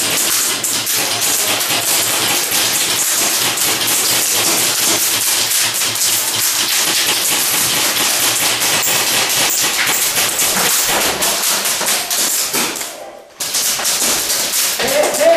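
Airsoft guns firing in long rapid full-auto strings, a dense fast clatter of sharp cracks. It breaks off briefly near the end and then starts again.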